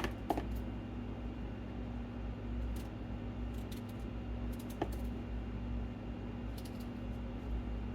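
A few light clicks and taps from a knife and a cucumber on a cutting board as the cucumber is cut open and checked for spongy spots, over a steady low appliance hum.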